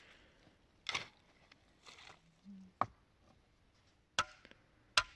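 About five sharp knocks or chopping strikes at irregular intervals, roughly a second apart, the last one the loudest.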